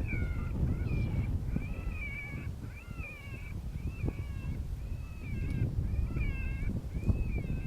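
Predator call sounding a high-pitched, wavering distress cry, repeated about every half second to coyotes, with strong wind buffeting the microphone.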